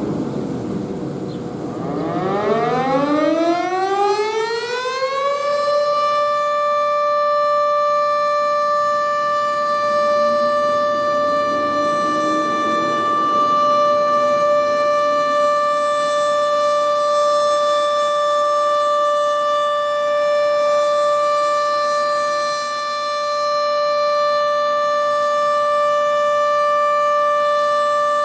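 Sentry 14V outdoor warning siren winding up. Starting about two seconds in, its pitch rises for about four seconds, then it holds one steady tone with many overtones.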